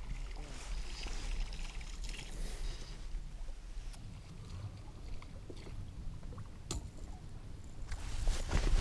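Wind rumbling on the microphone with water lapping against the boat hull and a few faint clicks; the wind grows louder near the end.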